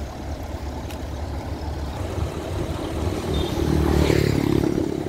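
Road traffic: a passing vehicle's engine grows louder and goes by close about four seconds in, then fades, over a steady low rumble.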